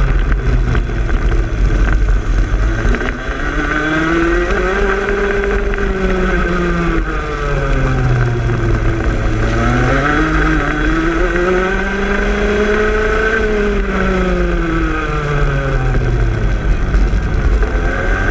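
Racing kart engine heard onboard, rising and falling in pitch as it revs up along the straights and drops back for corners, with two long climbs and falls and a third climb starting near the end. A steady low rumble of wind on the microphone runs underneath.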